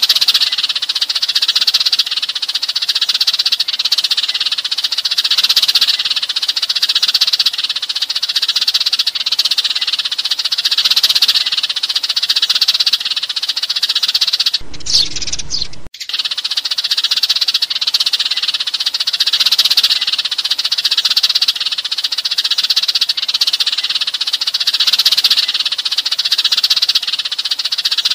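A flock of Eurasian tree sparrows chirping continuously in a dense, high-pitched chatter: a flock-call recording played to lure sparrows in for trapping. About halfway through, the chatter breaks off for about a second and a single different rising call is heard, then the chatter resumes.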